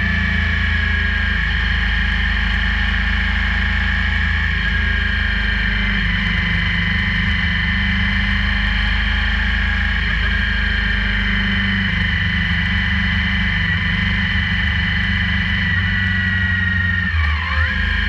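Motorcycle engine running steadily at road speed under a steady low rumble, with a steady whine. Near the end the level dips briefly and the pitch shifts.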